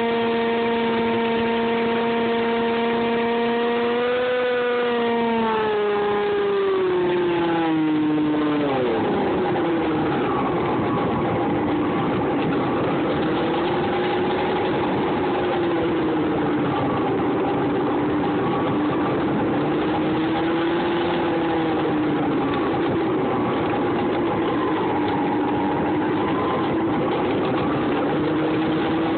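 Dynam Hawk Sky RC plane's electric motor and pusher propeller heard from on board: a steady whine that glides down in pitch between about four and nine seconds in as the motor slows. It then hums lower for the rest of the flight, rising and falling slightly, over a rushing noise.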